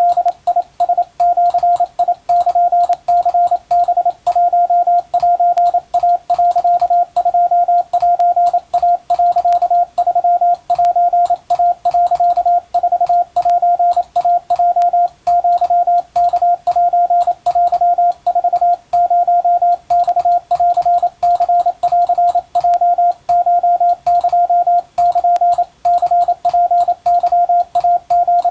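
Japanese-language (wabun) Morse code, sent as a steady tone of about 700 Hz in rapid dots and dashes with short gaps between characters, and a faint click at each key-down.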